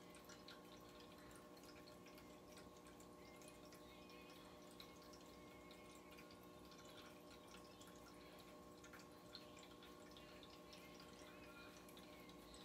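Near silence: room tone with a faint steady hum and a few scattered faint ticks.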